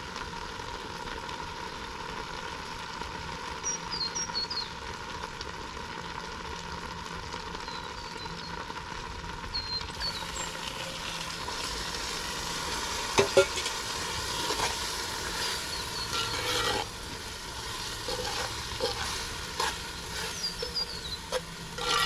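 Stew sizzling in a camp oven while it is stirred, with a few knocks of metal on the pot, the loudest about 13 seconds in. Small birds chirp now and then.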